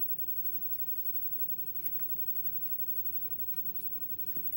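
A few faint small clicks and light scraping of small metal parts being handled: pins and springs being worked out of a disassembled Schlage pin-tumbler lock.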